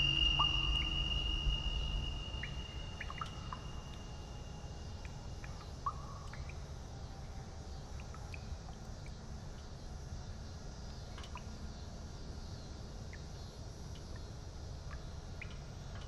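Horror-film sound design: a sustained high drone over a low rumble fades away over the first few seconds, leaving a steady low rumble with scattered faint, short chirps.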